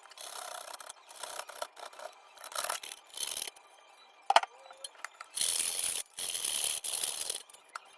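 Repeated scraping and rubbing strokes of garlic and Maggi stock cubes being worked by hand in a kitchen, uneven and noisy, with a sharp knock about four seconds in and longer, louder scraping passes in the second half.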